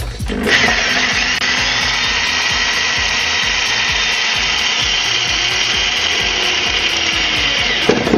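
Cordless power drill running steadily under load for about seven seconds, boring into the car's underbody. It starts about half a second in and stops just before the end.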